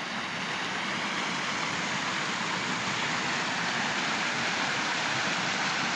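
Steady rushing of a small rocky creek, water running over stones.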